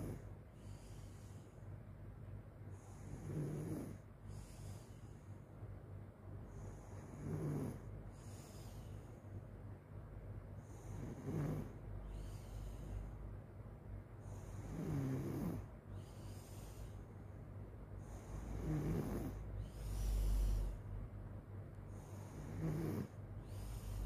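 A sleeping person snoring, one snore about every four seconds, each with a breathy hiss around it, over a faint steady hum.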